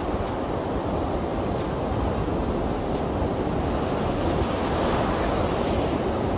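Ocean surf breaking and washing up a sandy beach: a steady rushing that swells about four to five seconds in as a wave breaks, with some wind rumbling on the microphone.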